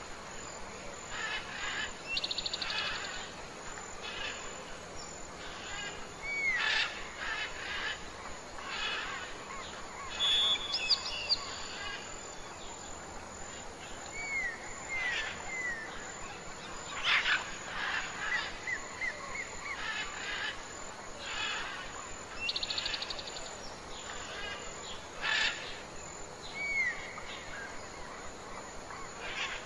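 Birds calling over steady outdoor background noise: short curved whistles, brief trills and chirps, recurring every few seconds.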